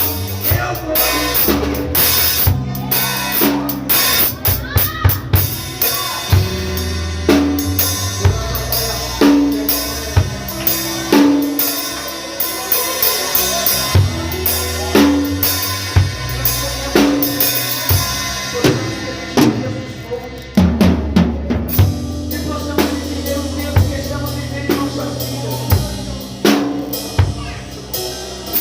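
Band music led by a drum kit: a steady beat of kick drum, snare and cymbal hits over a bass line and held chords, with no singing.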